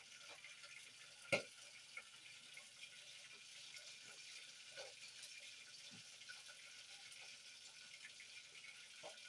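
Quiet kitchen: a faint steady hiss with a few light clicks and knocks, the sharpest about a second in.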